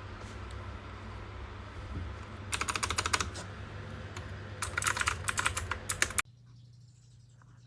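Typing on a computer keyboard fitted with novelty Mario and Pac-Man keycaps: two quick runs of clicking keystrokes, over a steady low hum that cuts out suddenly about two-thirds of the way through.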